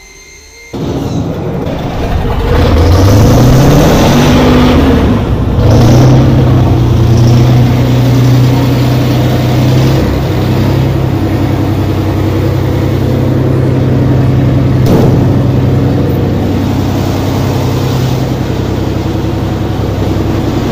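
Kirovets K-701 tractor's diesel engine starting: it catches suddenly about a second in, the revs climb for a few seconds, then it runs steadily.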